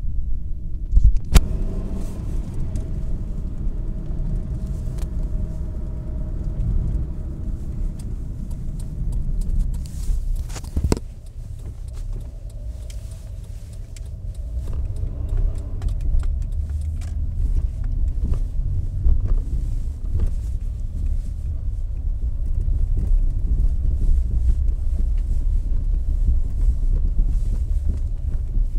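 Car driving, heard from inside the cabin: a steady low rumble of engine and road noise, with a few sharp knocks, the loudest about eleven seconds in.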